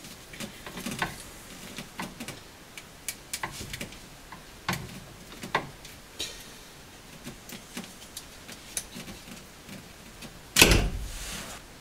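Scattered small clicks and taps from the Opel Kadett D's dashboard parts being handled and worked loose behind the steering wheel, then one loud thud near the end.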